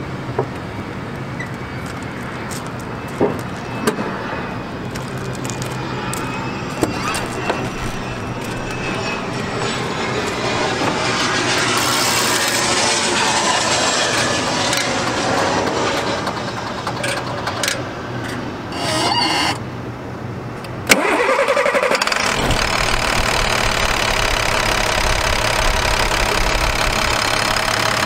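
International DT466 inline-six diesel engine cranked and started about three quarters of the way in, then idling steadily. Before the start, a few scattered knocks and clicks.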